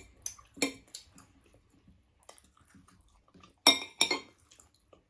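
Cutlery clinking against dishes during a meal: a few light clicks, then two louder ringing clinks close together a little past halfway.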